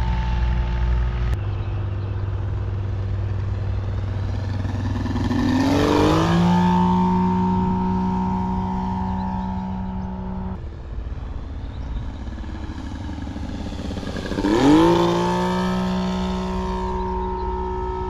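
Radial-engine sound of an electric RC Bücker Jungmeister biplane, played by an onboard sound module imitating a Saito FG-33R3 three-cylinder radial, running steadily in flight. The pitch sweeps up as the plane passes close, once about six seconds in and again, loudest, just before fifteen seconds, with abrupt changes in tone in between.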